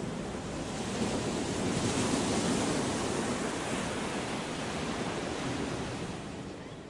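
Surf washing onto a beach: a steady rush of waves that swells about a second in and slowly fades away near the end.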